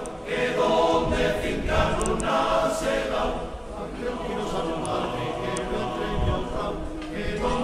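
A group of voices singing together, choir-like, in a continuous song.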